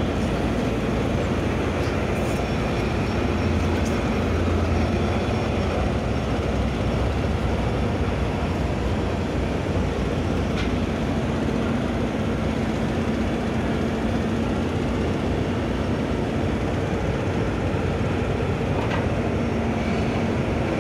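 A tugboat's diesel engine running steadily under way while it tows a loaded coal barge, a constant hum over heavy engine and water noise, with a few faint knocks.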